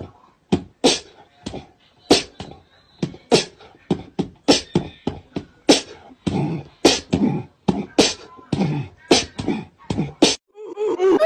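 Beatboxing: a voice making rapid, uneven mouth-percussion clicks, hissing snare-like sounds and a few deeper kick-like thumps.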